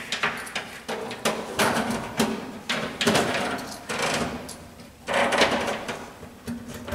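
Hands working inside a VESDA-E aspirating smoke detector's housing: a run of clicks and knocks with rasping scrapes, three longer scrapes about a second and a half, three seconds and five seconds in.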